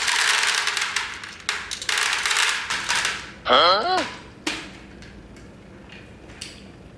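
Small plastic beads clattering and pouring in a dense rattle of clicks for about three seconds, then dying down to a few scattered clicks. A short rising-and-falling voice-like cry sounds about halfway through.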